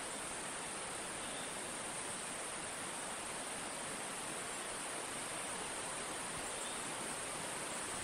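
Steady forest ambience: the even rushing of running water, with a constant high-pitched insect chorus over it.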